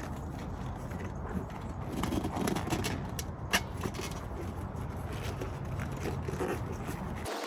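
Rubber inner tube being pushed by hand into a fat bike tyre: scuffing and rubbing with small clicks, one sharp click about three and a half seconds in. A steady low rumble underneath cuts off abruptly near the end.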